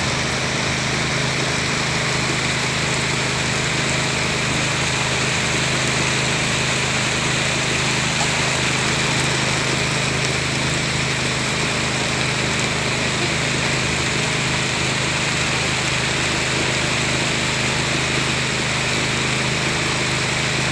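A boat's engine running steadily, with heavy rain falling on the water.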